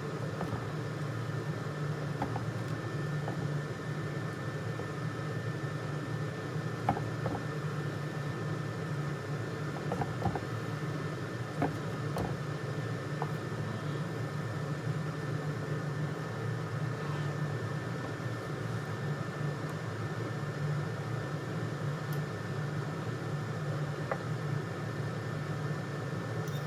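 Steady mechanical hum of a running kitchen appliance or fan, with a few faint, separate knocks of a knife on a cutting board.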